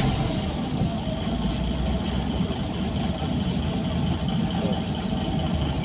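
Mercedes-Benz O405N2 city bus engine running with a steady low rumble, heard from inside the passenger cabin, with a few faint squeaks and ticks from the bus body.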